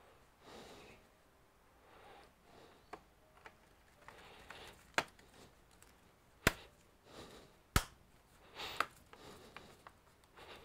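Plastic bottom cover of a Gigabyte Aero 15 laptop clicking and snapping as it is pressed down and handled, with three sharp clicks a second or so apart in the middle and a few fainter ones. Soft rustling of gloved hands on the case runs between them.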